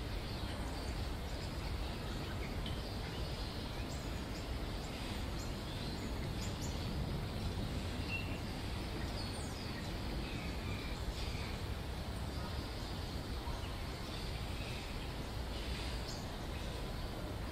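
Steady outdoor background noise, a low rumble, with faint scattered bird chirps over it.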